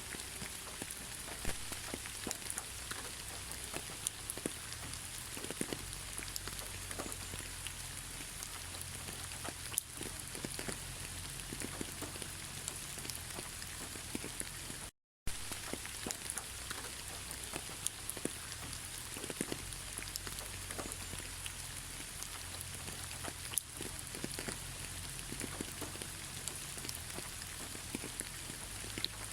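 Steady rain falling, with many separate drops ticking on a surface amid a continuous hiss. The sound cuts out completely for a moment about halfway through, then resumes unchanged.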